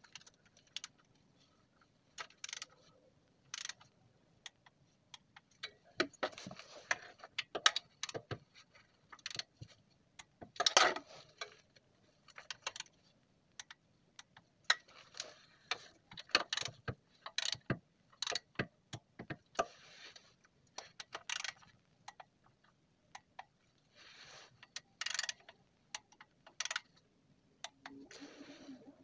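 Click-type torque wrench working round the transmission oil pan bolts: irregular sharp metallic clicks and short runs of rapid ratchet ticking. Each 'click' marks a bolt reaching the set torque of 11 N·m.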